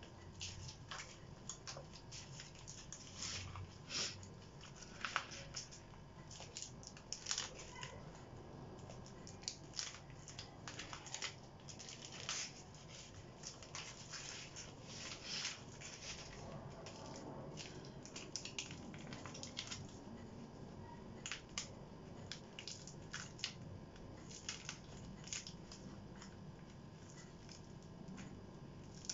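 Paper or plastic wrapper crinkling and tearing in gloved hands: a long irregular run of short rustles and rips.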